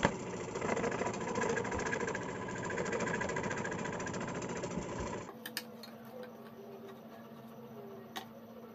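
Scroll saw running and cutting through thin wood, its blade stroking up and down in a fast, even buzz. About five seconds in the cutting stops and a much quieter steady hum remains, with a few light clicks.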